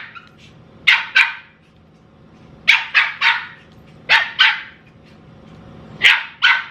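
Pomeranian puppy barking: short, high-pitched yaps in quick groups of two or three, about nine in all, with pauses between the groups.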